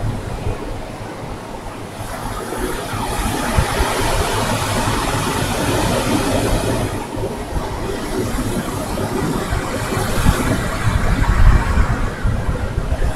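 Ocean surf washing onto a sandy beach: a steady rush of breaking waves that swells and eases every few seconds. A heavy, uneven low rumble of wind on the microphone runs under it.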